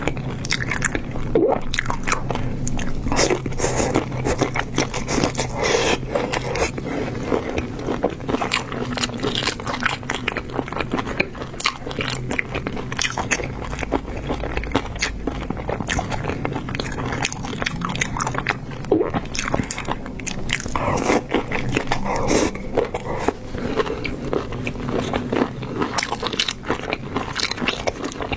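A person eating seafood close to the microphone: continual biting and chewing, with crunching and scraping.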